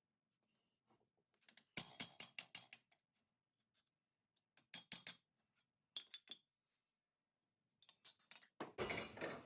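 Hammer striking a sheet-metal patch panel over an anvil to bend its edge down, in quick runs of light blows with pauses between. One run a little past the middle leaves a brief metallic ring, and handling noise of the panel follows near the end.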